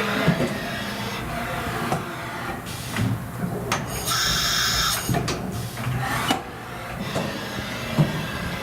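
Machine-shop machinery running with a mix of whirring and small knocks, and a sharp hiss about four seconds in that lasts about a second.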